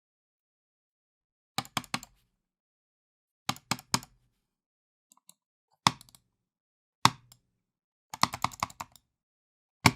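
Computer mouse clicked hard and impatiently in bursts: a few quick clicks, then single heavy clicks and a rapid flurry of clicking near the end, each click with a dull knock beneath it.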